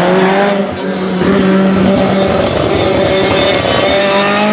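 Lancia Rally 037's supercharged four-cylinder engine under hard acceleration. Its pitch rises, holds steady for a couple of seconds, then rises again near the end.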